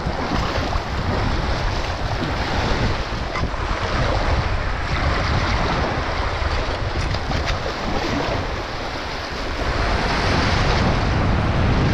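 Small waves washing and fizzing over the shallow shoreline around a wader's feet, with wind rumbling on the microphone.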